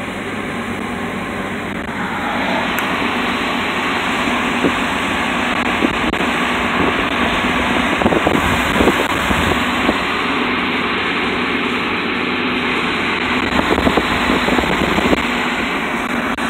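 Steady road noise of a car driving on wet pavement: tyre hiss with a low engine hum, heard from inside the car. It gets louder about two seconds in.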